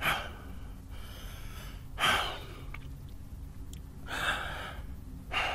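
A person breathing audibly, four breaths or sighs about every one and a half to two seconds, over a low steady hum.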